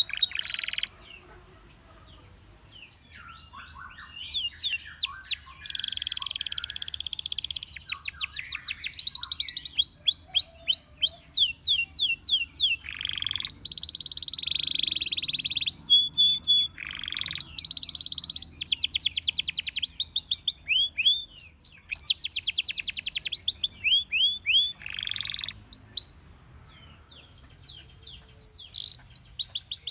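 Domestic canary singing: long rapid trills of quick falling whistled notes, mixed with buzzier rolls, with a pause of about two seconds near the start and another near the end.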